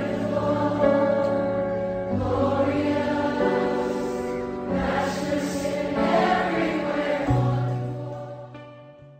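Slow choral closing music of long held chords that change every second or two, fading out over the last couple of seconds.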